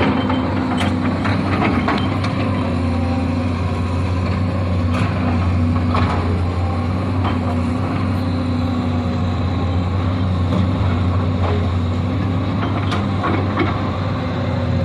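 Excavator's diesel engine running steadily with a constant low hum, with scattered sharp knocks and clanks from the machine at work.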